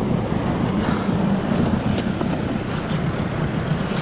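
Wind buffeting the microphone over the wash of sea waves around a small inflatable boat, steady throughout.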